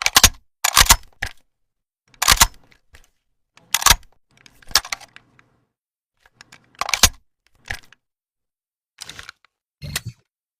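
Sharp mechanical clicks and clacks of an Uzi submachine gun being handled, about eight separate ones, some in quick pairs, spaced irregularly a second or more apart.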